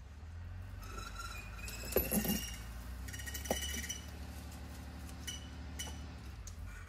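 Metal rigging (chain and snatch-block hardware) clinking several times with short ringing tones, thickest in the first half and again briefly near the end, over a low steady hum.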